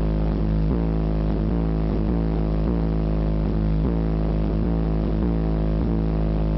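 Bass-heavy music played loud through a truck's aftermarket car-audio system with amplifiers and a large subwoofer: a deep, steady bass tone under a repeating pattern of notes.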